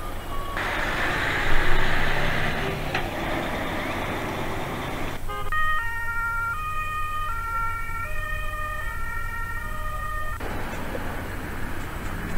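A rushing noise of vehicles, then from about five seconds in a German emergency vehicle's two-tone siren, stepping back and forth between two pitches for about five seconds before it cuts off.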